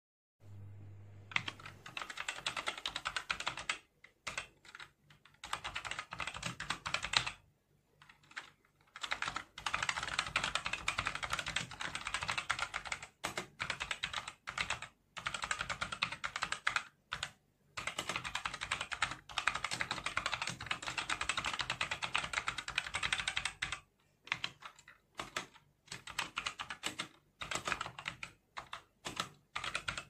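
SIGNO KB-738 Infesta mechanical gaming keyboard being typed on fast: a dense clatter of keystrokes in runs of a few seconds, broken by short pauses.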